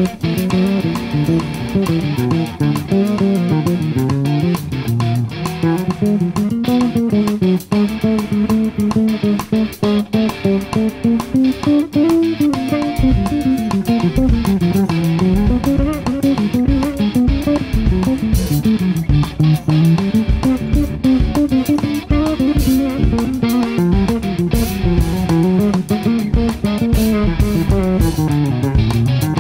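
Live instrumental jazz-fusion trio: electric guitar and bass guitar lines over a drum kit, with the kick drum coming through more strongly from about halfway.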